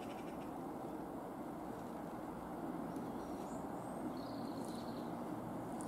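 Diesel multiple-unit passenger train approaching, a steady low engine drone and rail rumble that grows a little louder partway through, with a few faint bird chirps in the middle.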